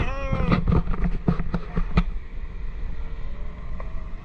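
Motorboat engine running with wind rumble on the microphone, with several sharp knocks in the first two seconds.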